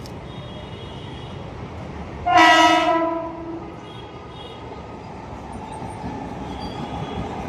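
Train horn sounding one blast of about a second and a half, loudest at its start and then fading, over the steady rumble of a running train.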